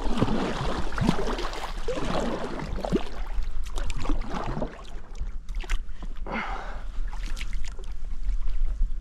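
Kayak paddle strokes in calm marsh water: the blades dipping and splashing, with water gurgling along the hull, in a run of strokes over the first five seconds and a lighter splash a little later.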